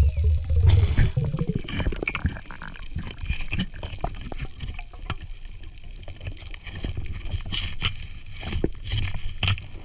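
Muffled underwater sound of water moving and gurgling around a diver's camera, with scattered short clicks and knocks; a heavier low rumble in the first two seconds.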